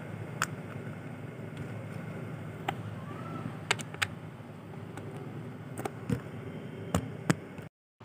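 Scattered clicks and rubbing of a phone and a lapel microphone being handled while the mic is clipped on, over a steady low hum. The sound cuts off suddenly near the end.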